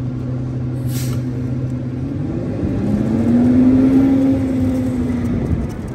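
Rear-loader garbage truck's engine idling, then revving up as the truck pulls away, loudest about four seconds in. A short hiss of air comes about a second in.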